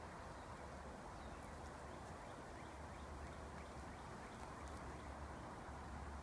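Quiet outdoor ambience: a steady hiss with a low rumble, and faint, short high chirps scattered through the middle.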